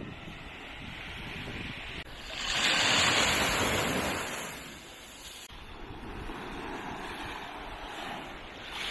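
Small sea waves breaking and washing up a sandy beach, one wave swelling loudest about a third of the way through, with wind buffeting the microphone.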